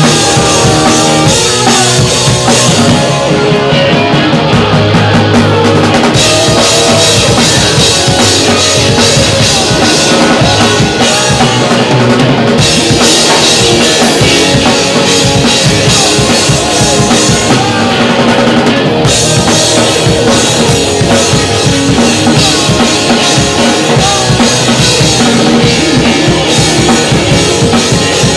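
Punk rock band playing live and loud: electric guitars, bass guitar and a full drum kit with bass drum and cymbals. The cymbals drop out briefly twice.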